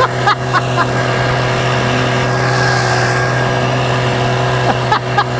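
8 hp outboard motor running steadily at an even pitch, pushing an inflatable boat along. The motor is set too deep, which the owner blames for the boat going slowly.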